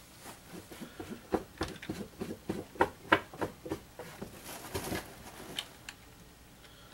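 Computer keyboard keys tapped rapidly and repeatedly, a fast irregular run of clicks lasting about five seconds, as a key is hammered to bring up the PC's boot-device menu.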